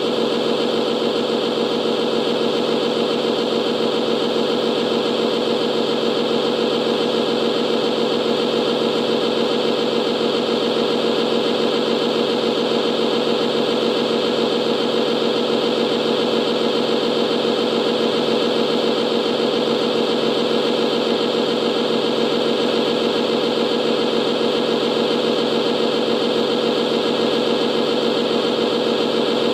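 Radio-controlled model airport fire truck running with a steady, unchanging mechanical hum while its roof water cannon sprays a continuous jet.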